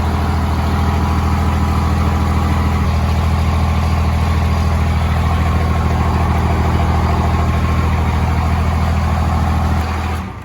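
5.9 Cummins diesel engine idling steadily at a constant pitch, dying away near the end.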